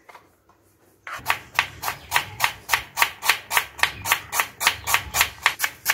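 Kitchen knife slicing an onion on a wooden cutting board. Starting about a second in, the knife clicks against the board in an even rhythm of about four strokes a second.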